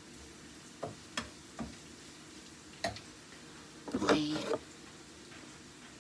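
Bacon frying in a pan: four sharp pops and crackles of spitting fat in the first three seconds over a faint steady background.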